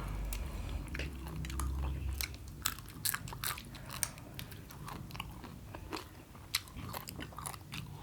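King crab shell being bitten, cracked and picked apart while eating, close up: irregular sharp crunches and clicks with chewing between them.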